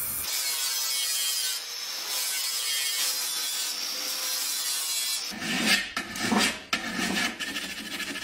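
Steel being ground with an angle grinder disc, a steady high hiss for about five seconds. Then a hand file scrapes back and forth over the steel in uneven strokes.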